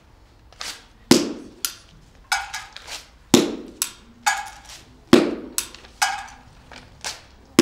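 A series of sharp knocks, about a dozen at uneven spacing, each with a short ringing tail; the loudest come roughly every two seconds with softer ones between.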